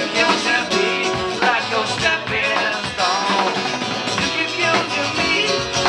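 Live duo music: an acoustic guitar strummed with a drum kit keeping time, and a voice singing over them.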